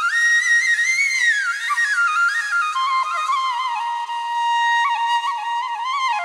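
Solo flute music: a slow melody that rises and falls in steps, with small ornaments.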